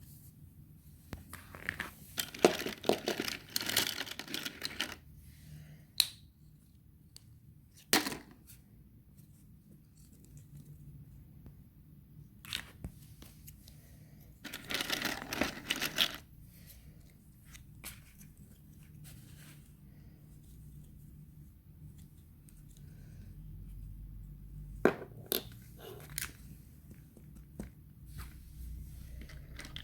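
Hands handling a kinetic sand play set: two longer bursts of rustling and crinkling, with a few sharp clicks or taps in between.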